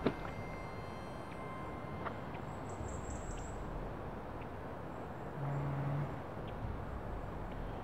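Woodland ambience: a steady background hiss with faint, high bird chirps about three seconds in. A brief low hum near the end is the loudest part.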